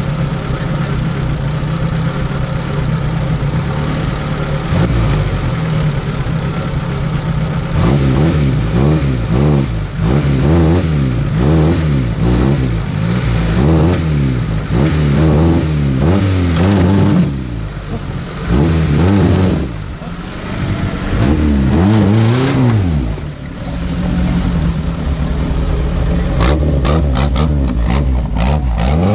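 Off-road car engine running steadily, then revved up and down over and over for about fifteen seconds before settling back to a steady run. This is the revving of a vehicle that has bogged down in the ravine and is trying to drive out.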